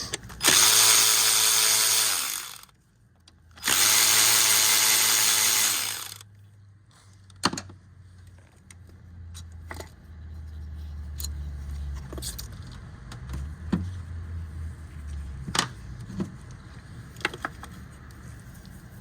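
A cordless power tool runs in two bursts of about two seconds each, spinning the 10 mm ignition-coil bolts; scattered light clicks and knocks of handling parts follow.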